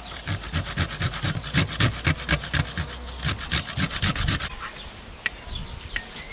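A garlic clove grated on a metal box grater in rapid, even rasping strokes that stop about four and a half seconds in. A few light clicks follow.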